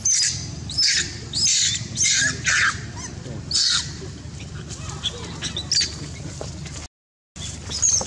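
Young long-tailed macaque screaming in distress while pinned down and attacked by a larger male: a rapid string of short, shrill screams, about six in the first four seconds, then fainter and more scattered.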